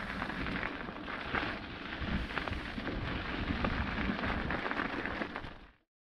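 Wind buffeting a body-mounted camera's microphone over the crunch and rattle of a bikepacking bike rolling down rocky dirt singletrack. The sound drops away quickly near the end.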